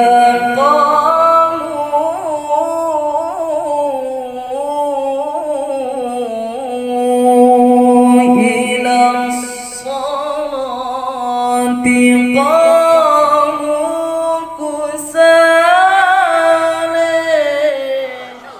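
Young man reciting the Quran in melodic tilawah, imitating the style of a Pakistani haflah reciter: long phrases with held notes and wavering ornaments, with a pause for breath before each new phrase.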